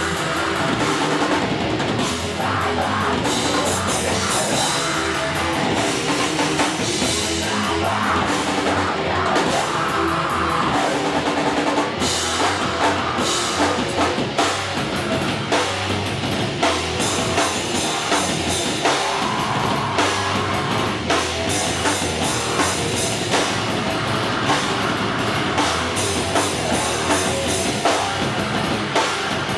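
Thrash metal band playing: distorted electric guitars over a drum kit, loud and dense, with the drum hits coming through as a regular beat from about halfway.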